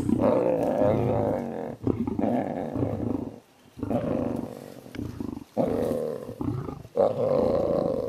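Big cats growling in a string of about five drawn-out, rough growls, each a second or two long, with short breaks between them.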